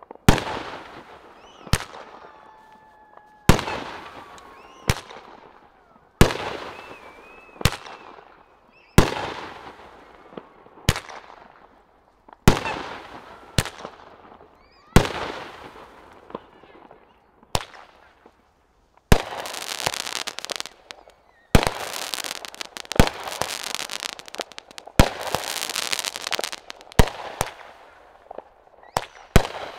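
Consumer firework cakes going off. The Insight cake fires a shot about every second and a half, each a sharp bang with a fading tail of crackle and echo. About two-thirds through, the Trail Blazer cake starts with a dense, steady rush of crackling and hissing, broken by sharp bangs.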